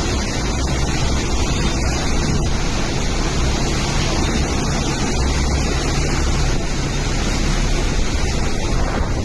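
Steady, even rushing noise of storm wind and water from the cyclone, with no distinct events.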